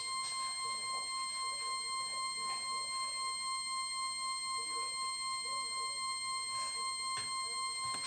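A continuous high-pitched electronic tone with thin overtones, held at one steady pitch and level without a break.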